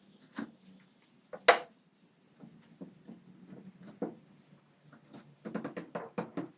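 Wooden stool parts being handled and fitted together: a sharp wood-on-wood knock about one and a half seconds in, light taps and rubs of wood, then a quick run of small knocks near the end.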